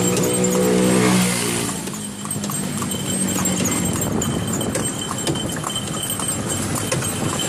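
Horse's hooves clip-clopping on an asphalt road as a horse-drawn cart rolls along, with passing road traffic behind. The hoofbeats come through plainly after about two seconds.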